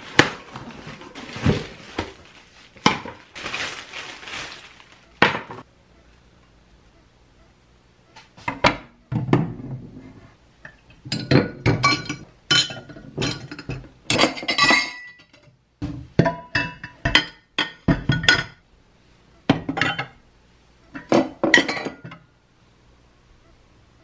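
Plates and drinking glasses clinking and knocking as they are set one after another into a wooden plate rack and a wire cup stand. Before that, in the first few seconds, come rustling and knocks as the parts are taken out of a cardboard box.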